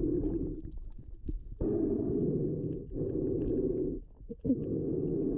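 Muffled underwater rumble of water noise picked up by a GoPro in its waterproof housing, coming in surges of about a second with brief dips between.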